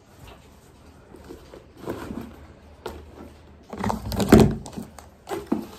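A plastic food container being handled on a kitchen countertop: scattered knocks and clicks, with the loudest clatter about four seconds in.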